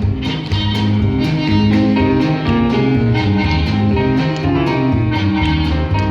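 Live instrumental ensemble music, with a steady beat under plucked and bowed string parts.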